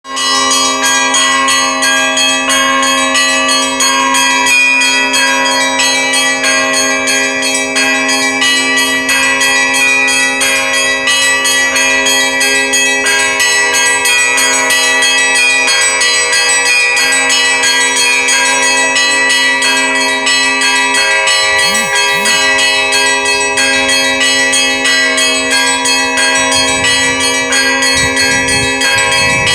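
Russian Orthodox church bells ringing a continuous peal (zvon): small bells struck in quick succession over the long-sounding tone of a larger bell.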